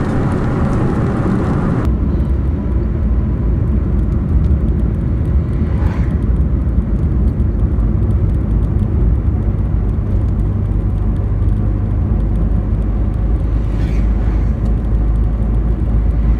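Road and engine noise inside a moving truck's cab, a steady low rumble. About two seconds in, the higher hiss drops away suddenly and the low rumble carries on.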